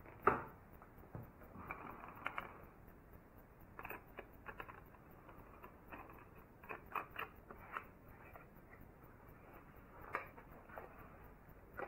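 Scattered light knocks, clicks and rustles of someone moving about and handling things at a workbench, with a sharper knock just after the start and another about ten seconds in.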